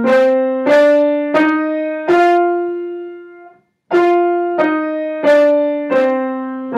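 Piano playing the B-flat major five-finger scale with both hands together an octave apart, one note at a time. It climbs to F, holds it, then steps back down to B-flat, which is held at the end.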